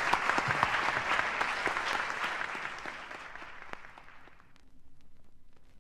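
Audience applause from a live poetry reading, played from a worn vinyl record, fading out about three to four seconds in. It leaves only faint surface crackle and a low hum.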